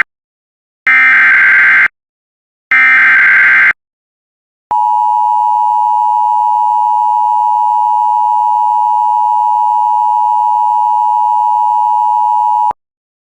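Emergency Alert System header: the last two of three harsh, buzzing SAME data bursts, each about a second long with short gaps between them. These are followed by the EAS two-tone attention signal, a steady dual tone just under 1 kHz that holds for about eight seconds and cuts off sharply. The sequence signals the start of a weather warning broadcast.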